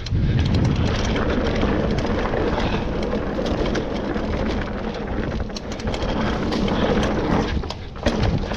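Mountain bike riding fast down a dirt trail: tyre rumble and wind buffeting the microphone, with the chain and frame rattling in quick clicks over the bumps.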